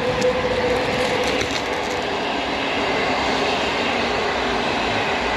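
Passenger carriages of an electric-hauled express train rolling past at speed: a steady rumble and rush of wheels on rail, with a faint whine that fades out in the first second or so.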